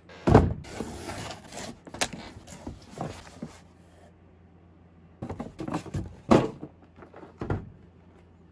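Cardboard shipping box and its packaging being handled and unpacked: scattered knocks and thumps with cardboard rubbing and scraping between them, the loudest thump near the start and another about six seconds in.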